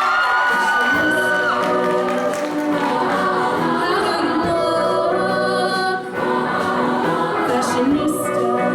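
Show choir singing in harmony over music, with long held notes.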